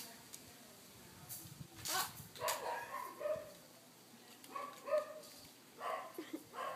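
A dog barking: a string of short barks in two bunches, the first about two seconds in and the second from about four and a half seconds.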